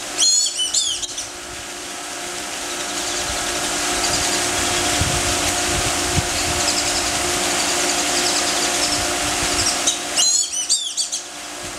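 Birds calling in two quick bursts of high, rapid, chattering calls, one at the start and one near the end. A steady mechanical-sounding hum runs underneath throughout.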